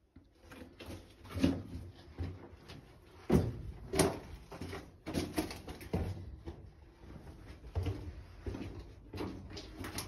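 Footsteps crunching on loose rock and rubble on a mine tunnel floor, starting about half a second in and going on unevenly, about one or two steps a second, with a few sharper knocks of stone.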